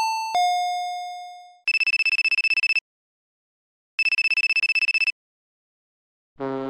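A telephone bell rings twice, each ring about a second of rapid rattling strokes. Before it, a chime tone fades out over about a second and a half, and near the end a low, steady horn note begins.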